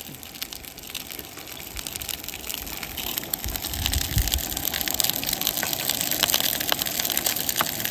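Whole fish frying in sesame oil in a nonstick frying pan: a steady sizzle with many sharp crackles of spattering oil, growing louder about three seconds in.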